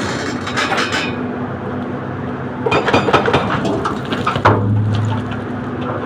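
A heavy machine's engine running steadily, with bouts of metallic clanking and rattling in the first second and again from about three to four and a half seconds in.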